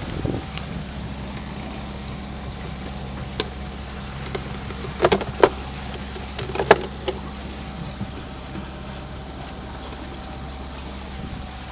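Beta 38 three-cylinder marine diesel running steadily at about 2400 RPM, driving the boat: a steady low drone with a faint steady whine above it. A few sharp knocks break in around the middle.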